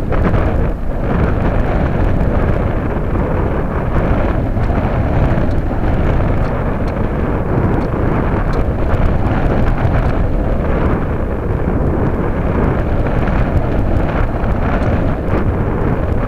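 Loud, steady rush of airflow buffeting the microphone of a keychain camera mounted on a Radian powered glider in flight, a heavy low rumble with no clear motor tone.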